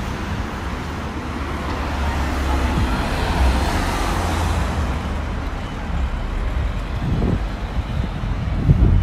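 City street traffic: a van drives past close by, its engine and tyre noise swelling to a peak near the middle and then fading, over a steady low rumble.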